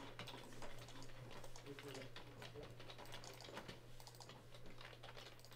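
Computer keyboard typing: faint, irregular key clicks, over a low steady hum.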